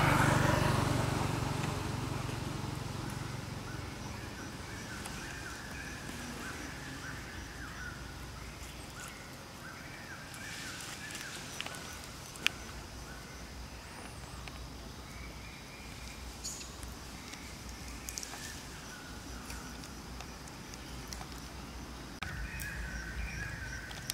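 Outdoor ambience with faint, broken high chirping calls and a few sharp clicks. A louder sound right at the start fades away over the first few seconds.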